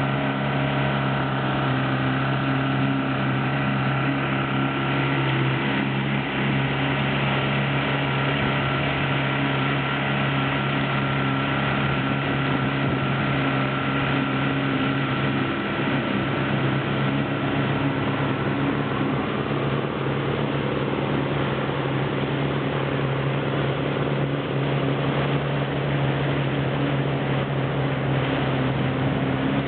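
Mercury outboard motor running steadily at speed, a constant low drone, with water rushing in the wake and wind.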